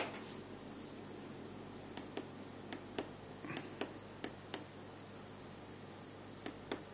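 Tactile push-buttons on a TM1638 LED-and-key module clicking about ten times, mostly in quick pairs, starting about two seconds in, as the motor speed is stepped down. A faint steady hum runs underneath.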